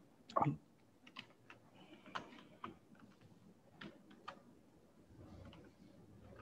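Computer keyboard keys pressed slowly, one at a time, as faint irregular clicks a second or so apart. There is a louder, duller knock about half a second in.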